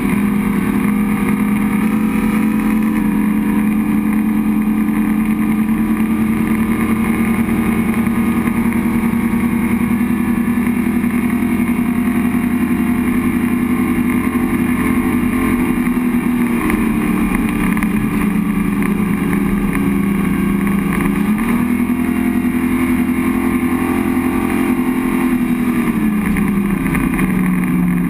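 Ilmor 725 hp V-10 powering a speedboat at high speed, a loud, steady engine note. The pitch holds high, dips a little about halfway through, climbs back, then falls away near the end.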